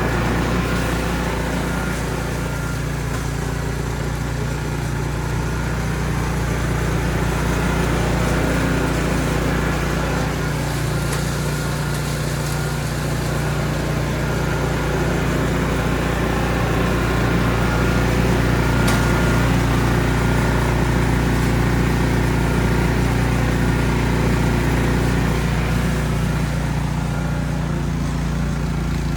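Ariens Platinum SHO 24-inch two-stage snow blower's engine running steadily while clearing deep, wet snow, with a slight shift in the engine note near the end.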